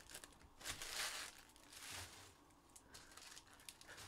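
Trading card pack wrapper crinkling as it is torn open, in two short rustling stretches about a second apart.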